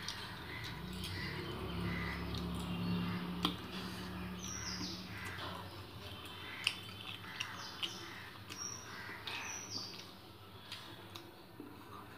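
Fingers working rice and curry on a steel plate while eating by hand, with a few sharp clicks. Birds chirp and call in the background.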